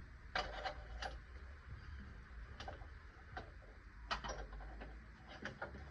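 Irregular light clicks and taps, bunched near the start, about four seconds in and near the end, over a faint steady low hum.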